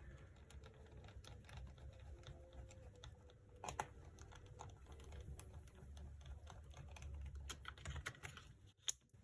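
Faint scattered clicks and taps from handling small parts inside an open laptop, with a sharper click about three and a half seconds in and another near the end.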